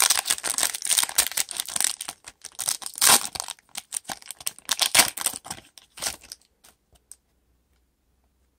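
Foil trading-card pack wrapper crinkling and crackling as it is torn open and peeled back around the cards, stopping abruptly about seven seconds in.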